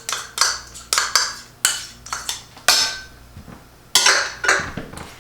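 A spoon clinks and scrapes against kitchenware while sour cream is scooped and measured. The knocks are short, sharp and irregular, about a dozen of them, with a brief lull in the middle.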